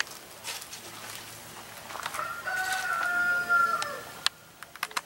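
A rooster crowing once: a single drawn-out call of about two seconds in the middle, trailing off at the end.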